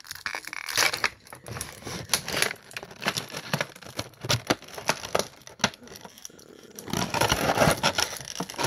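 Plastic packaging crinkling and rustling as an action figure is taken out of its box, with scattered clicks and taps of handling; the rustling grows denser in the last couple of seconds.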